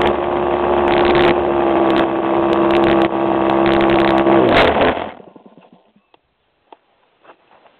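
Small engine of a radio-controlled model airplane running at a steady high pitch, then dropping slightly and cutting off about five seconds in. Faint scattered clicks follow.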